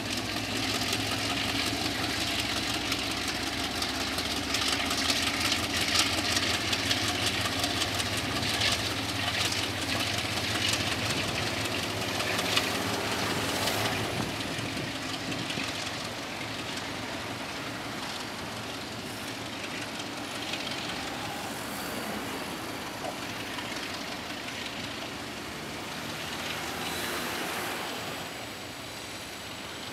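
DF11 diesel-electric locomotive running under power as it hauls passenger coaches, with the wheels clicking and clattering over the track. The sound is loudest in the first half and grows quieter and steadier as the train moves away.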